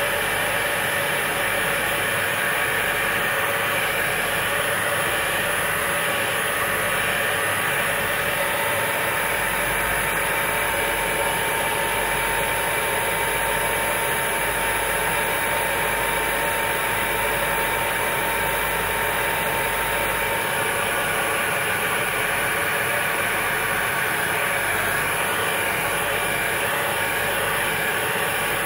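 Handheld hair dryer running steadily: an even rush of blown air with a faint steady motor whine.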